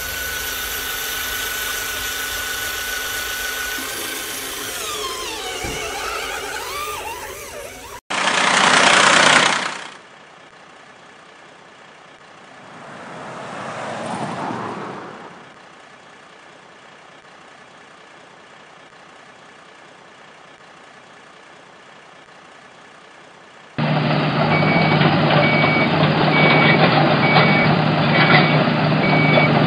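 Cartoon sound effects: two whooshes, then from about 24 seconds a heavy truck engine running with a reversing alarm beeping steadily. Before that, steady held tones that cut off abruptly about 8 seconds in.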